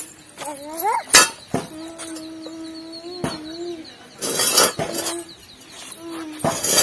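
Sharp metallic clinks and a short clatter as a small black metal stove is handled and set down on stone paving, several separate knocks spread through the few seconds.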